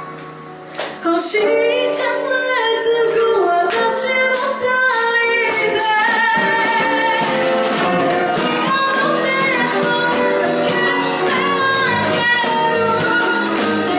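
Live band music: a woman singing lead over drums and acoustic guitar. The music drops to a quieter passage at the start and the full band comes back in about a second in.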